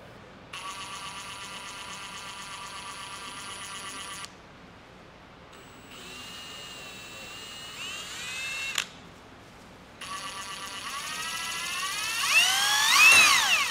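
Cordless mid-torque impact wrenches run free in three short runs with gaps between them, each a motor whine with no hammering. The last, a Hart HPIW25 brushless, has a whine that climbs and wavers in pitch and is loudest near the end. It sounds more like a brushed motor than a brushless one, 'a bit funky'.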